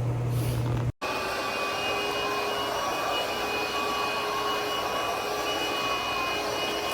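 Cordless stick vacuum motor running steadily, a dense airy noise with a steady high whine over it. A sharp break about a second in, and the sound stops abruptly at the end.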